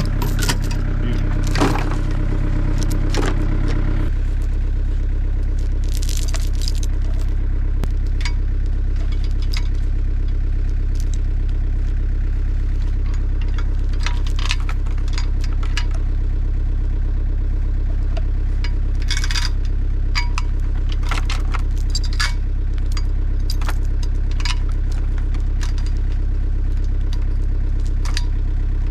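Engine running steadily, with scattered metallic clinks and rattles throughout.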